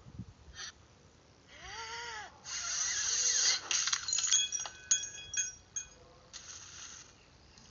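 A cat meows once, a single call that rises and falls in pitch. Then comes a loud second-long burst of hiss-like noise, followed by a scatter of light clinks and taps with brief ringing tones.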